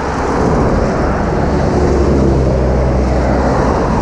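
Steady wind rush over the microphone of a moving bicycle, with road traffic; a car's engine and tyres come through in the middle as it passes.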